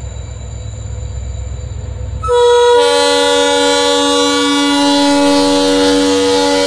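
WDP4B diesel locomotive approaching with a low engine rumble. About two seconds in, its horn sounds and is held in one long, loud blast.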